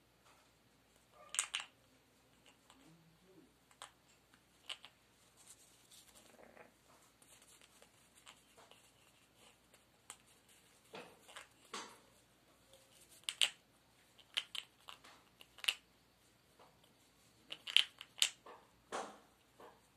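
Severe macaw chewing and tearing paper held in its foot with its beak: irregular crunching and ripping snaps, in scattered clusters with the loudest late on.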